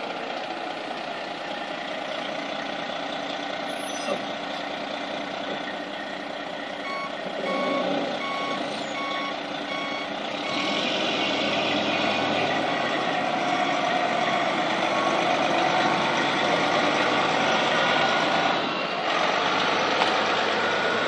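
Large fire-rescue truck's diesel engine running as it manoeuvres. Its reversing alarm beeps steadily for a few seconds about a third of the way in. The engine grows louder in the second half as the truck drives around.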